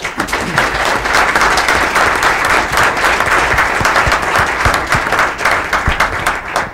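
Audience applauding, many hands clapping at once. It breaks out suddenly and dies away near the end.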